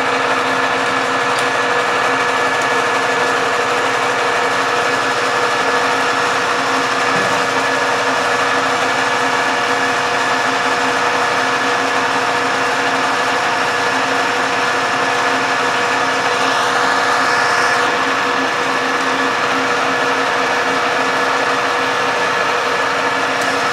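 Metal lathe running steadily under power feed while a turning tool takes a facing cut across the end of the spinning bar stock: an even machine hum of several steady tones over a cutting hiss.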